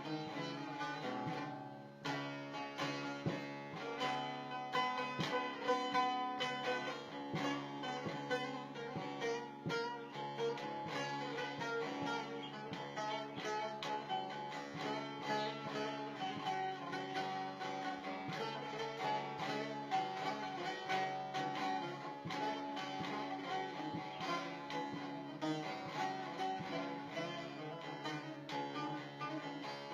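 Instrumental music led by a plucked string instrument, with quick picked notes over held sustained tones.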